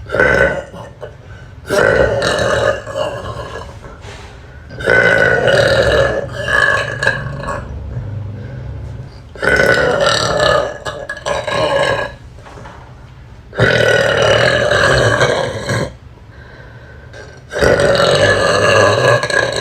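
A young woman burping loudly again and again. A short burp comes at the start, then five long, drawn-out burps of about two seconds each with short pauses between them.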